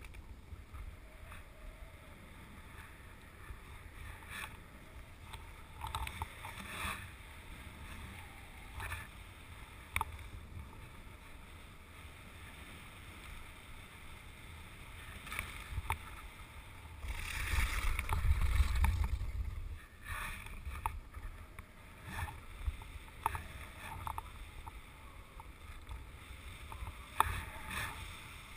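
Wind rumbling on the microphone of a kite-skier's camera, with the scrape and rattle of skis over snow-covered ice. A stronger gust surges for a couple of seconds about two-thirds of the way through.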